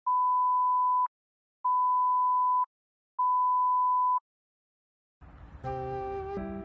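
Censor bleep: a steady pure beep tone sounded three times, each about a second long with short gaps, masking swearing. Background music starts about five seconds in.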